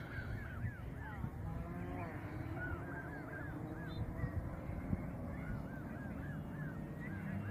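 A flock of Canada geese honking: short calls in quick runs of several, coming in three or so bouts, over a steady low rumble.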